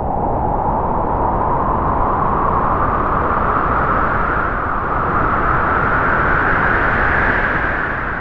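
Howling wind sound effect: one long gust that begins abruptly, slowly rises a little in pitch and fades near the end.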